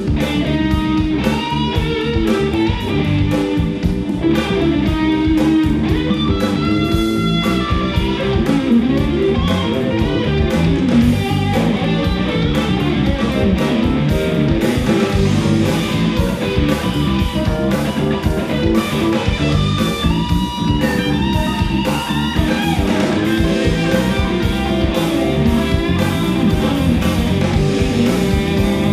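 Instrumental rock band playing live: a lead electric guitar over bass guitar and a drum kit.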